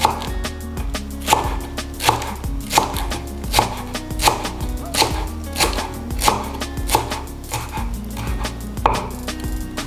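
Kitchen knife chopping culantro (sawtooth coriander) leaves finely, in even strokes about every three-quarters of a second.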